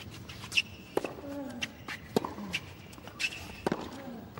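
Tennis rally on a hard court: several sharp racket-on-ball hits and ball bounces, with a couple of short falling grunts and the brief high squeak of tennis shoes on the court surface.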